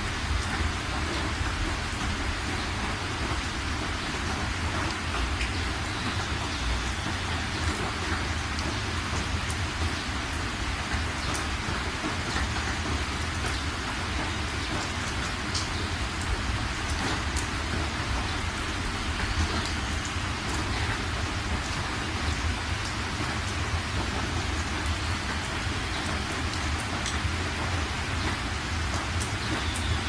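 Steady rain falling, a dense even patter with occasional sharper individual drops, over a constant low rumble.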